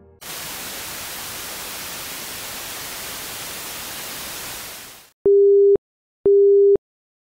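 Telephone line static, a steady hiss for about five seconds that cuts off suddenly. Then the beep-beep tone of a call that has dropped: a steady tone of one pitch, half a second on and half a second off, twice.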